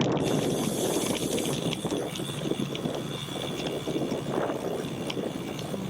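Steady rushing wind and road noise from a bicycle riding along, heaviest in the low range.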